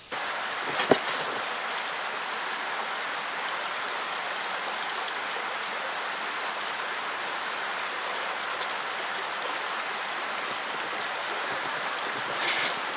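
Steady rushing hiss like running water, with one light click about a second in.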